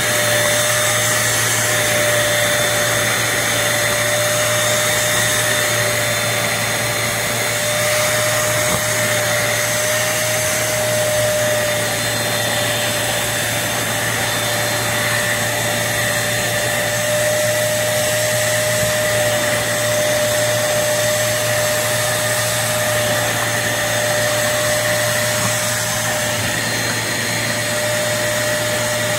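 Hoover CleanSlate portable carpet and upholstery spot cleaner running: a steady suction-motor drone with a high whine held at one pitch.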